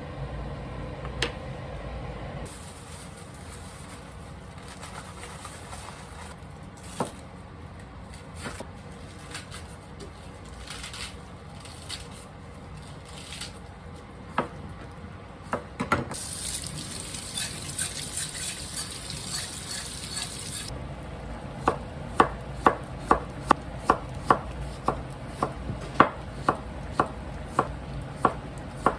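Kitchen knife chopping on a cutting board in a steady run of sharp strokes, about two to three a second, through the last third. It is preceded by scattered knocks of utensils and a few seconds of running water around the middle.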